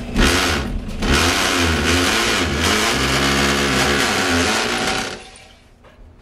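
Corded electric drill boring into a wall, its motor pitch rising and falling as it bites, with a short letup about a second in. The drill stops about five seconds in.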